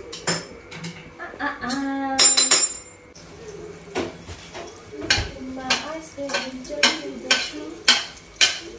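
Metal slotted spoon stirring melting butter in a large aluminium pan, knocking and scraping against the pan about twice a second. A sharp metallic clatter comes a couple of seconds in.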